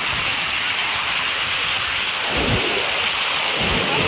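Fast-flowing floodwater rushing and churning, a steady even wash of water noise, with a low thump about two and a half seconds in and another near the end.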